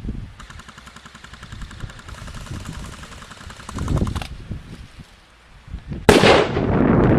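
Airsoft guns firing long full-auto bursts, a fast even rattle of shots lasting about four seconds. About six seconds in a sudden loud rushing noise cuts in and keeps going.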